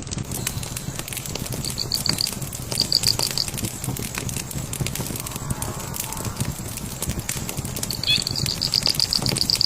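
Fire crackling with many sharp pops over a low rumble. A bird gives a high, rapid trill in two short bursts, then a longer trill near the end.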